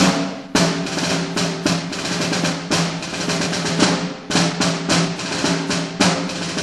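Drum-heavy music: loud percussion hits and rolls over a steady, held low note.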